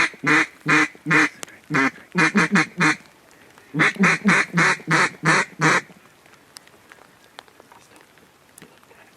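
Mallard duck call blown in loud quacking sequences: a short run of quacks, a quick cluster of short quacks about two seconds in, then a string of about seven evenly spaced quacks that stops about six seconds in.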